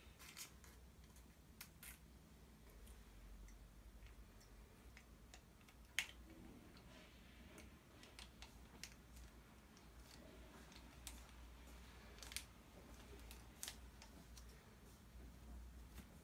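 Faint, scattered clicks and crinkles of a plastic flower-food sachet being snipped open with scissors and handled over a glass vase, with one sharper click about six seconds in.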